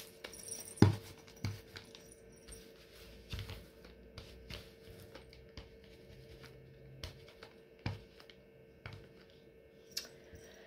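Sticky lint roller being rolled and pressed over a sweatshirt to pick off loose fur fluff: faint crackling and rustling with scattered light knocks and taps, the sharpest about a second in. A faint steady hum runs underneath.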